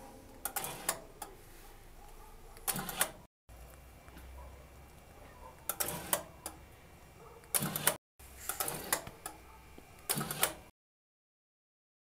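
3D-printed motorised two-point door lock working: sharp clicks, then a short burst of clattering as the motor drives the gear and steel bolts. It comes three times, cut off abruptly between takes, and stops dead near the end.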